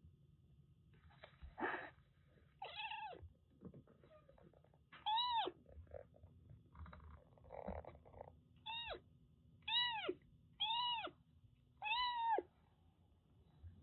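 Siamese-mix kitten meowing: six short, high meows, each rising and then falling in pitch, with two short noisy bursts between them.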